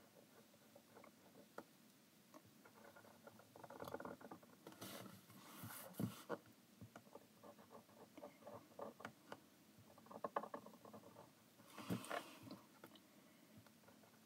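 Faint scratching and tapping of a fine-tip marker drawing short strokes on paper, with a couple of louder rustles around five and twelve seconds in.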